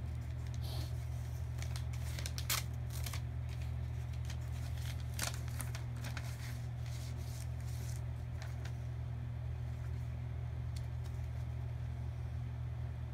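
Paper rustling and crinkling as a child handles an envelope and letter, with a run of short crisp rustles in the first five seconds or so, then quieter handling. A steady low hum runs underneath.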